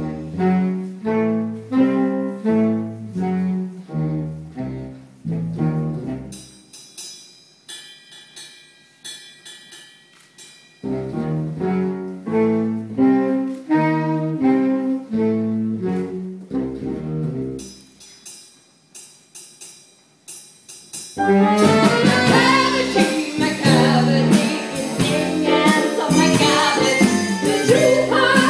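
Live band playing an instrumental dance section: a low stepping riff twice, with quieter sparse passages between, then the full band comes in much louder about three-quarters of the way through.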